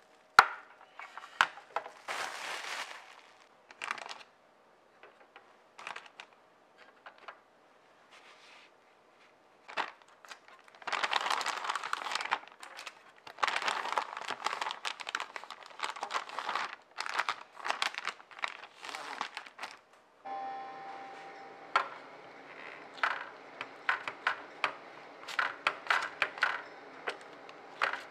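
Plastic zip-top freezer bags crinkling and rustling in bursts as they are handled. Later, over a steady room hum, light taps and rustles as dough balls are pressed flat on a parchment-lined sheet pan with a plastic-gloved hand.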